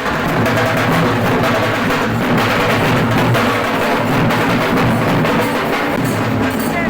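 Music with steady drumming and percussion.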